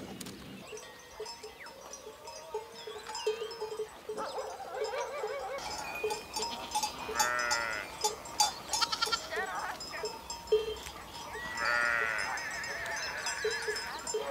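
A grazing flock of sheep and goats bleating: several quavering bleats, the loudest about seven seconds in and again about twelve seconds in. Short ringing clinks recur irregularly throughout.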